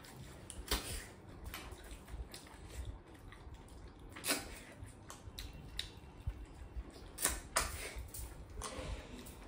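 Close-up eating sounds: wet mouth smacks and chewing, with a few sharp smacks standing out, about a second in, around four seconds, and twice in quick succession near seven and a half seconds.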